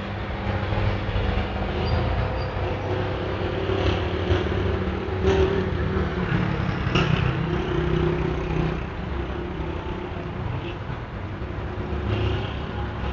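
Heavy street traffic: car and truck engines running steadily with a low drone, with two short sharp knocks about five and seven seconds in.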